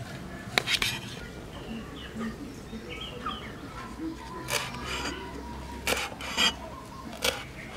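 A steel cleaver chopping leaves on a wooden cutting board: about six sharp, irregular knocks of the blade against the wood, with small birds chirping faintly behind.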